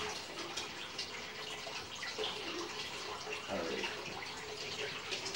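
Kitchen sink faucet running steadily, water pouring into the sink.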